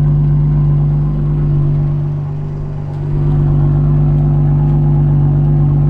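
BMW 840i's 3.0-litre turbocharged straight-six idling steadily through a straight-piped exhaust, with a deep, unchanging drone. It dips slightly in loudness for a couple of seconds about a second in.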